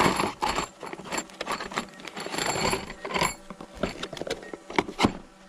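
Long steel screws rattling and clinking in a cardboard box as it is handled and opened, with the cardboard rustling; a few sharper clicks near the end.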